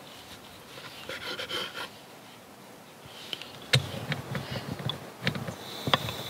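A knife scrapes briefly as it slices a chocolate snack cake on a wooden cutting board. Then come sharp metal clicks and handling knocks as a spider-leg camping stove's fuel hose is fitted to its gas canister. Near the end a thin, high, steady hiss begins as gas starts to flow.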